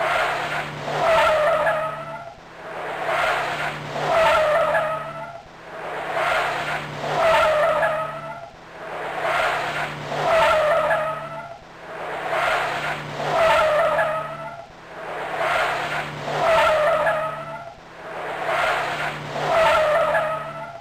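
A car sound that swells and fades about once a second in a very even repeating cycle, with a wavering high, squeal-like tone at each peak.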